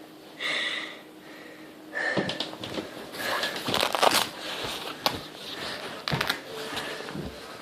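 A short breathy sound about half a second in, then several seconds of irregular rustling, crinkling and sharp clicks, like close handling noise.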